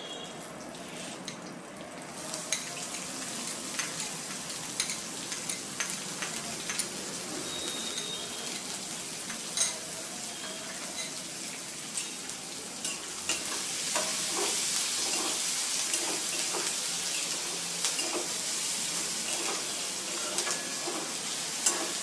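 Hot oil sizzling in a steel kadhai with crackling pops from the tempering of seeds and curry leaves, then chopped onions frying. The sizzle grows louder about halfway through.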